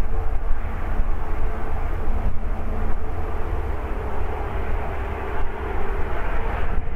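Boeing 737-8 MAX's CFM LEAP-1B jet engines running as the airliner rolls along the runway: a steady low rumble with a steady droning hum, one lower hum dropping away about three seconds in.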